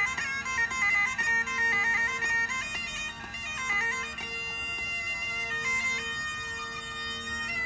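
Great Highland bagpipe played solo: a stepping chanter melody over a steady drone. The melody settles into longer held notes in the second half.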